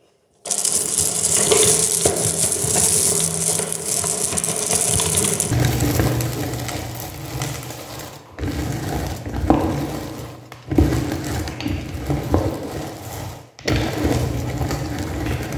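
Hand-cranked meat grinder crushing M&M candies: a continuous crunching and grinding as the candy shells are broken in the auger and forced through the cutting plate. It starts about half a second in, crisp and hissy for the first few seconds, then heavier and lower, with three short breaks in the second half.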